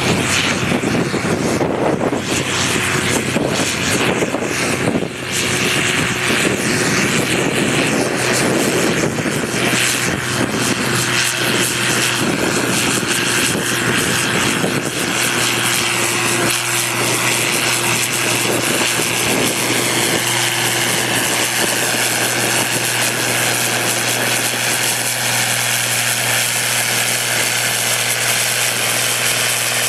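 Farm tractor's diesel engine running hard under full load, pulling a weight-transfer sled in a tractor pull. It is a loud, steady drone that holds an even pitch through the second half.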